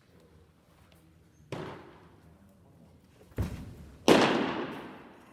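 Sharp smacks of a pitched baseball popping into a catcher's leather mitt, echoing in a large gym; the loudest comes about four seconds in with a long ringing decay, after two fainter knocks.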